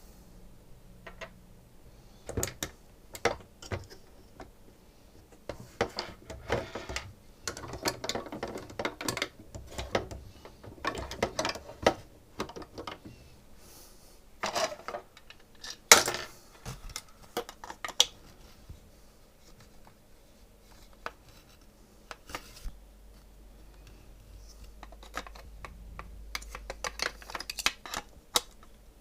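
Small hard parts of a SodaStream being handled during disassembly or repair: irregular clicks, taps and short scrapes, with one sharper knock about halfway through.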